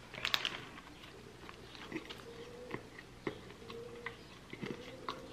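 A man biting into a crispy chicken burger and chewing it: a bite just after the start, then soft, scattered clicks of chewing.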